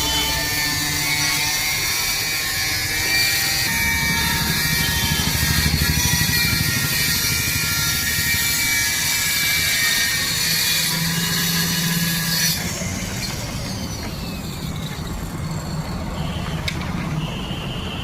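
Electric woodworking power tool running with a steady whine, stopping abruptly about twelve seconds in.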